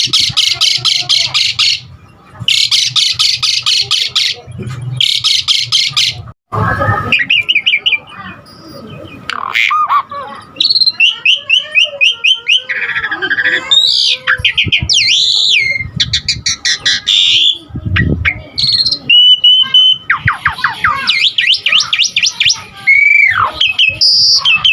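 Asian pied starling singing hard through a long, varied song. It opens with two rapid rattling trills, then runs on into a mix of quick trills, sweeping whistles and chattering phrases, with a steady held whistle about three-quarters of the way through.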